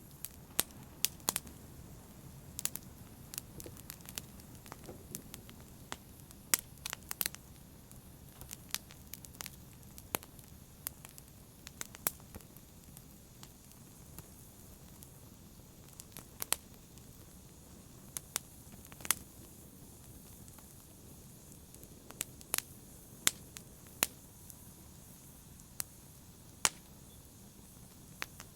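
Wood fire in a fireplace crackling: irregular sharp pops and snaps over a soft, steady low rush of burning. The pops come thickest in the first several seconds and more sparsely after.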